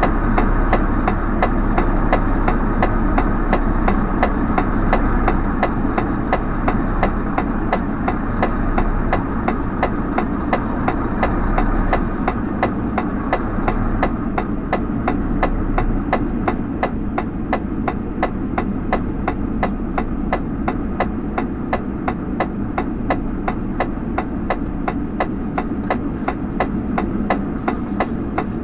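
Truck engine running steadily, heard from inside the cab, with a regular clicking about three times a second running alongside it.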